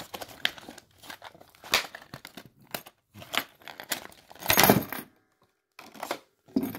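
Handling of a padlock and its keys: scattered small clicks and knocks with rustling, and a louder rustle about four and a half seconds in.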